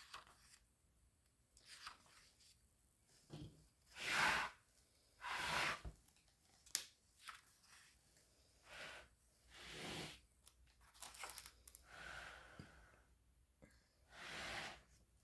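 Paper pages of an old LIFE Nature Library book being turned one after another: a series of short paper swishes and rustles, one every second or two, with a few crisp crackles.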